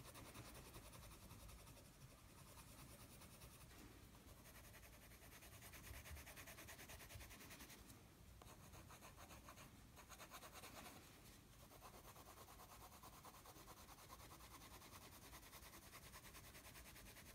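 Faint, soft scratching of a white Prismacolor coloured pencil rubbed back and forth over paper, blending layered pencil colour, with a couple of brief pauses.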